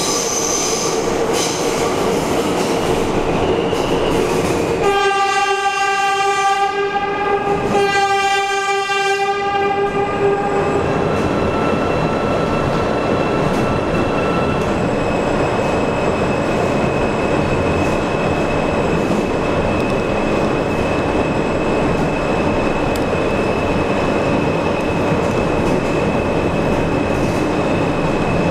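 Subway train horn blowing twice, two blasts of about two seconds each with a short gap between them, over the steady running rumble of the train in the tunnel. A thin, high, steady whine runs under the running noise.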